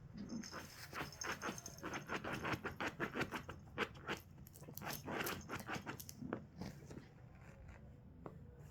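A puppy attacking a cushion: a fast, irregular run of fabric scrapes, scuffles and light thumps that eases off about seven seconds in.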